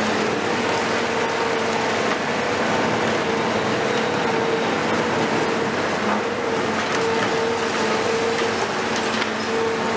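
Cat 374F UHD demolition excavator with its Cat C15 ACERT diesel running steadily under work, a dense mechanical noise with a steady whine through it that swells and fades slightly.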